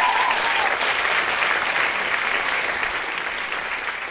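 Theatre audience applauding at the end of a song, with one long whistle in the first second; the applause slowly dies away.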